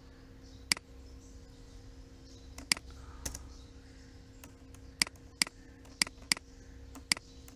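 About ten sharp, irregularly spaced clicks from a computer keyboard and mouse as code is copied and pasted, over a faint steady electrical hum.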